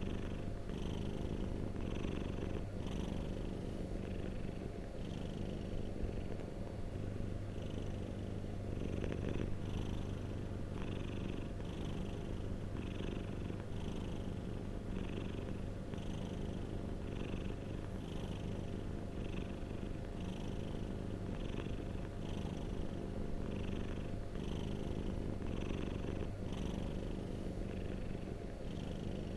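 Domestic cat purring steadily, a continuous low rumble with a soft rise about once a second as it breathes in and out.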